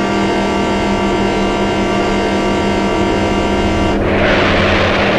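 Dubbed-in vehicle sound effect: a steady drone of many held tones, then a loud noisy rush about four seconds in.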